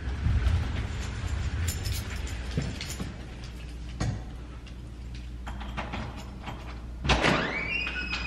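Folding utility wagon loaded with grocery bags rolling over hallway carpet: a low rumble with scattered knocks and rattles from the frame and load. About seven seconds in, squeaky tones start sweeping up and down.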